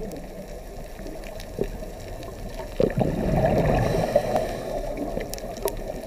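Underwater gurgling of a scuba diver's exhaled breath bubbling out of the regulator, louder from about three seconds in.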